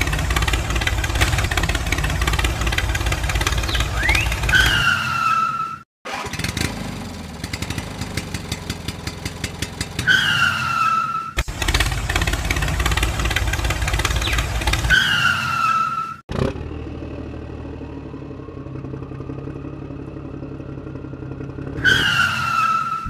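Tractor engine running in several stretches that cut off abruptly and restart. Each stretch ends with a short falling whistle-like tone. One stretch has a rapid ticking rhythm.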